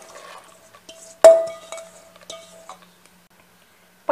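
Soaked lima beans tipped from a steel bowl into a stainless steel pressure cooker: light clattering, then one sharp metal clang a little over a second in that leaves the cooker ringing for about a second and a half, with a few small clinks.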